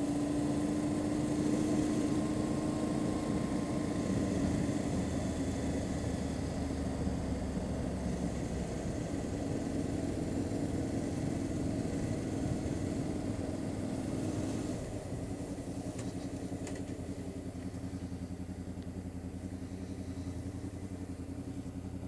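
Honda VFR800's V4 engine running steadily as the motorcycle rides along, heard from the bike itself. The sound gets a little quieter about fifteen seconds in.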